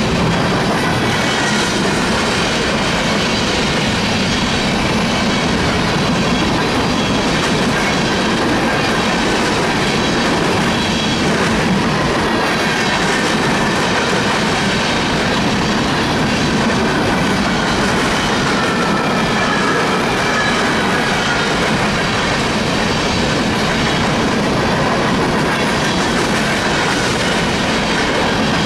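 Freight train cars rolling steadily past, with wheels clacking over rail joints and faint high wheel squeal that drifts in pitch.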